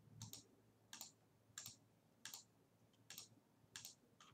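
Computer mouse clicking in a steady run, about one faint click every two-thirds of a second, re-clicking a button again and again.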